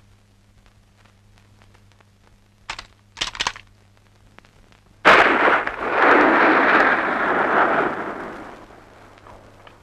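A gunshot, then a quick burst of shots half a second later, and about two seconds after that a sudden loud explosion that rumbles for around three seconds before fading. A low steady hum, typical of an old film soundtrack, runs underneath.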